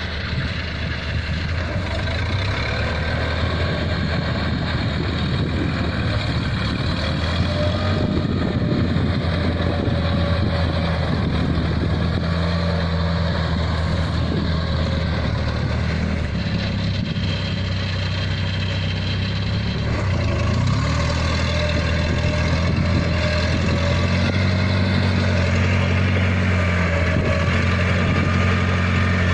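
Diesel engine of a Kubota rice-harvesting machine running steadily with a low hum, its pitch shifting slightly about twenty seconds in.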